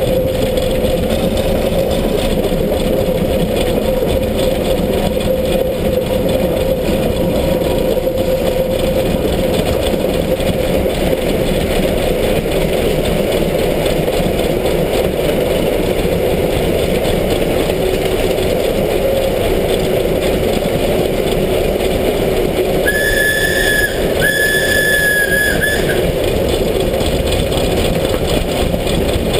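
Steam locomotive 33-037, a DR class 52-type engine, running at speed, heard close from its side: a steady loud running noise of the engine and its wheels on the rails. About three-quarters of the way in the locomotive's steam whistle gives two blasts, a short one and then a slightly longer one, at one steady pitch.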